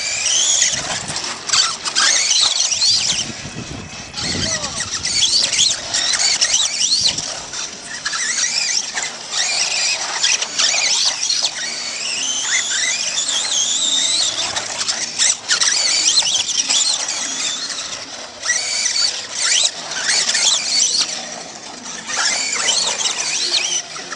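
Radio-controlled off-road trucks racing on a dirt track, their motors whining high and gliding up and down in pitch as they accelerate and slow through the corners, several overlapping at once.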